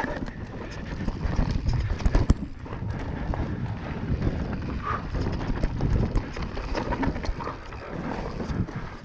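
Mountain bike descending a rough trail at speed: tyre rumble over the ground, with the bike rattling and many irregular sharp knocks and clatters.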